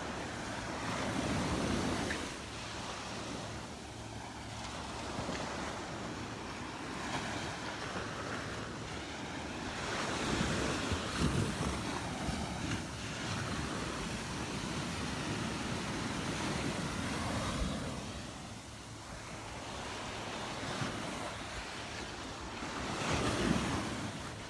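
Gulf surf washing onto the beach, the noise swelling and fading several times as waves break, with wind buffeting the microphone.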